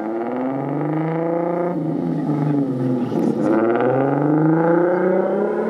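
A Volkswagen Golf hatchback's engine revving as the car pulls away and accelerates. Its pitch climbs, breaks off at a gear change, and climbs again.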